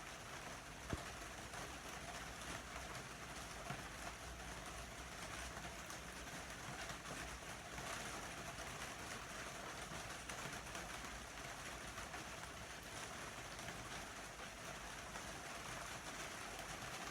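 Steady rain falling, an even hiss with a couple of sharp drip-like ticks, the clearest about a second in.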